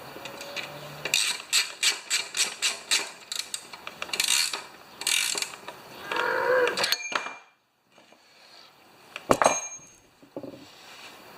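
Ratchet wrench clicking in a quick run of about ten strokes, as a plug is wound in on a small engine. Handling noise follows, then a sharp knock about nine seconds in.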